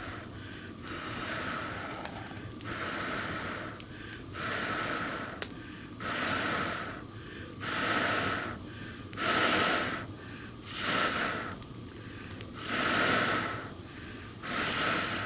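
A person blowing on the smouldering Swedish torch log to revive the flame after it has gone out. There are about nine long breathy blows roughly one and a half seconds apart, loudest in the middle.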